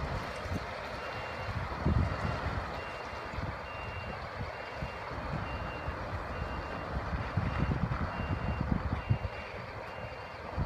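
Heavy-haulage diesel tractor unit rumbling as it hauls a heavily loaded drawbar trailer slowly away, with a few louder low surges. Over it a warning beeper sounds a steady string of short high beeps.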